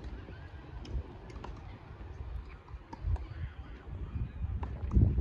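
Tennis rally on a hard court: scattered sharp pops of the ball being struck and bouncing, over a low rumble of wind on the microphone that grows louder near the end.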